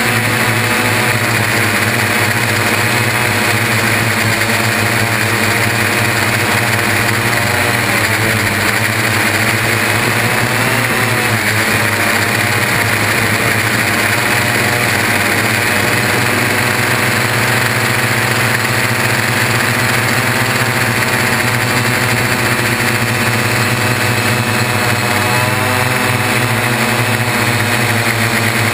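Y6 coaxial multirotor's six brushless motors and propellers running in flight, heard close up from the frame: a loud, steady multi-tone drone whose pitch wavers up and down as the throttle changes, most markedly about ten seconds in.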